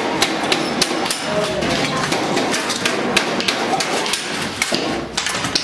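Hammering on sheet metal: irregular sharp metal knocks, about three or four a second, with voices in the background.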